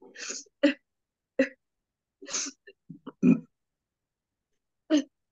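A person clearing the throat and hacking in about six short, separate bursts, heard through a video call's audio that drops to silence between them. The effortful hacks and burp-like sounds fit straining to bring up something felt stuck in the throat.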